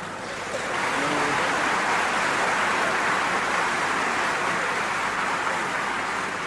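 Live audience laughing and clapping, swelling about half a second in, holding steady and fading near the end.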